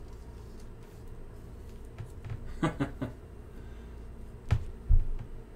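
Trading cards being handled and set down on a table: a few light taps and clicks and a dull thump near the end, the loudest sound, over a steady low hum. A brief murmur of voice comes about halfway through.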